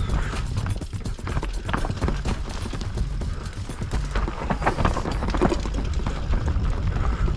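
YT Capra enduro mountain bike descending a rocky, rooty dirt trail: an irregular clatter of tyres, chain and frame knocking over stones and roots. A steady low rumble of wind buffets the helmet-mounted action camera's microphone.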